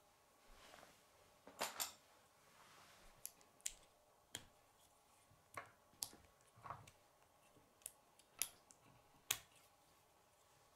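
K'nex plastic rods and connectors clicking as they are handled and snapped together: about a dozen sharp, faint clicks at irregular spacing, including a quick pair about a second and a half in, with the loudest near the end.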